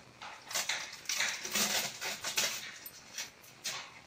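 Packaging being handled: a paperboard product box and plastic wrapping rustling and scraping in a quick run of short crinkling noises with a few sharp clicks, busiest from about a second in to two and a half seconds.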